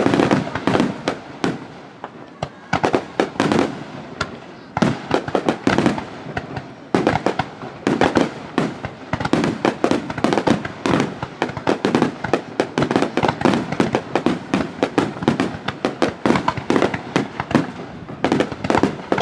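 Aerial firework shells bursting in rapid succession, several sharp bangs and crackles a second, overlapping with little pause between them.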